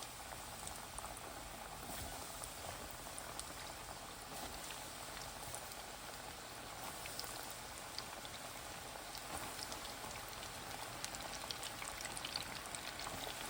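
Shrimp deep-frying in hot oil: a steady sizzle with many small crackles, getting a little louder near the end.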